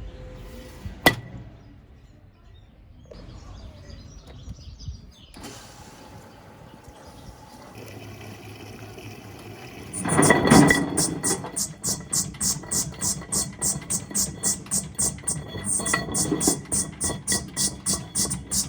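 Washing machine drum turning with a load of stones inside. A single sharp click comes about a second in. From about ten seconds in, the stones clatter against the drum in a steady rhythm of roughly two to three impacts a second.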